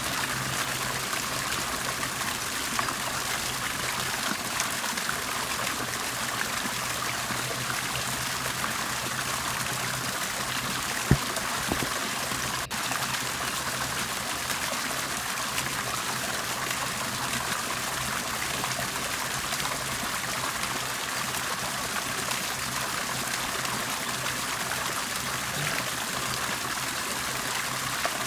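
Water bubbling and trickling steadily, with a steady low hum underneath. A single sharp click sounds about eleven seconds in.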